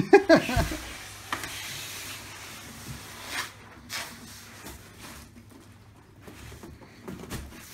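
Rustling and scraping of a large cardboard box being carried, with a few sharp knocks.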